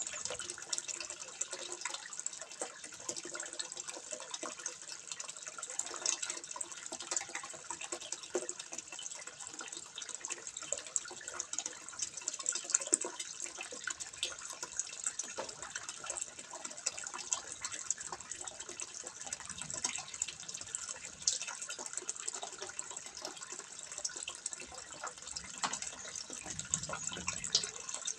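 Water trickling and splashing steadily into a fish pond, with many small drips and splashes.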